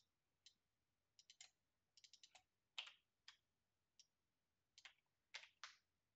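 Faint, scattered computer mouse and keyboard clicks, about a dozen short ticks, some in quick runs of three or four.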